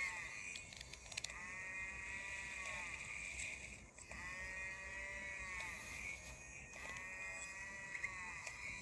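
Cow moo sound effect played in reverse, repeated: the end of one call, then three full calls about three seconds apart, each a drawn-out call whose pitch arches up and back down.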